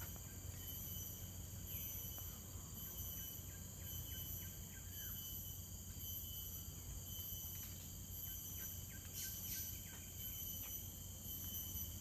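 Tropical forest insect chorus: a steady, high-pitched buzz at several pitches, over a low background rumble. A few brief chirps about nine seconds in.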